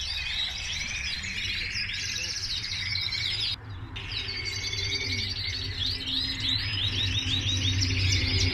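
Many canaries singing and chirping at once: a dense chatter of trills and quick rising and falling notes over a low steady hum. The birdsong breaks off for a moment about three and a half seconds in.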